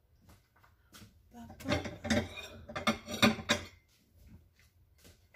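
Dishes and cutlery clattering as they are handled, a run of clinks and knocks through the middle.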